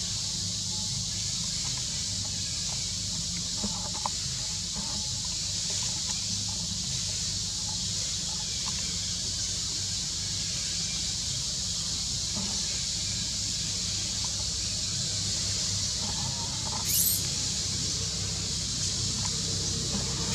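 Steady high-pitched outdoor background hiss with a low hum beneath it, unchanging throughout; a brief faint scrape shortly before the end. No calls or cries from the monkey.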